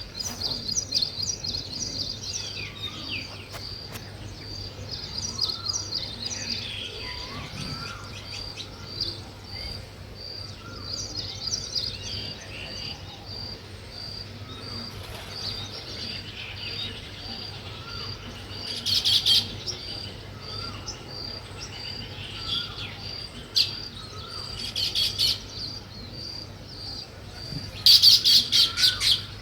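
Small birds chirping: many overlapping chirps, with one high note repeated about twice a second. Louder bursts of rapid chirping come about two-thirds of the way in and again near the end.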